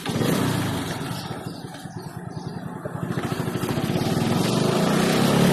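Motorcycle engine running as the bike is ridden along the road, heard from the rider's seat; its sound dips about two seconds in, then grows steadily louder to the end.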